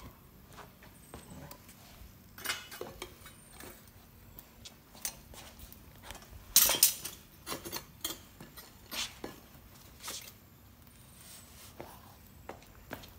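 Steel lifting tongs and a pouring shank clinking and scraping against a steel crucible of molten aluminium as it is handled, with scattered short clanks and a loudest clank and scrape about halfway through.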